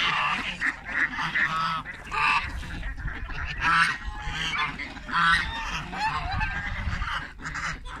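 Domestic geese honking over and over in a mixed poultry flock, with ducks and chickens calling among them. The calls come in quick, overlapping bursts throughout.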